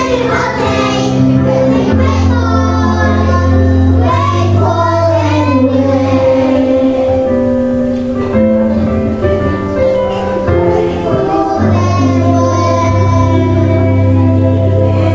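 Children singing a Christian special song over an instrumental backing track with a steady bass line.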